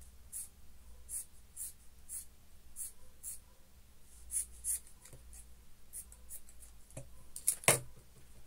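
Hands handling and folding knit fabric: a string of short, soft rustles, with one sharper knock near the end.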